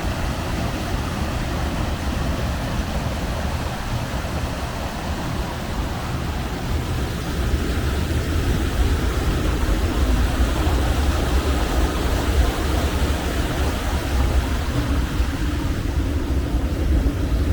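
Floodwater rushing steadily over a pond spillway, running strong and high after heavy storm rain.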